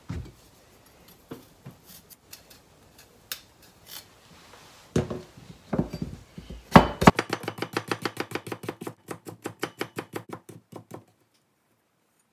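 Chef's knife chopping a carrot on a plastic cutting board: a few separate knocks and cuts at first, then past the middle a quick, even run of chops lasting about four seconds, stopping shortly before the end.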